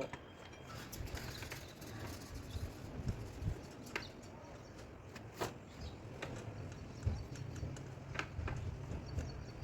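Irregular light taps and knocks, about one a second: paintless dent repair tools tapping on a car's sheet-metal body panel.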